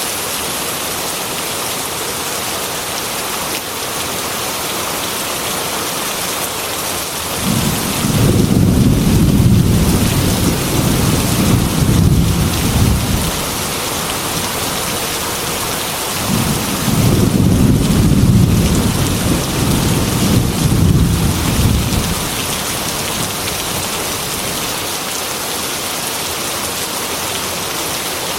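Heavy rain beating steadily against a glass window, with two long rolls of thunder, each lasting about five or six seconds, the first about a quarter of the way in and the second past the middle.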